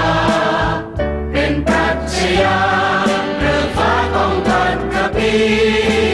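A Thai-language song: a choir singing a slow melody over instrumental backing with a sustained bass.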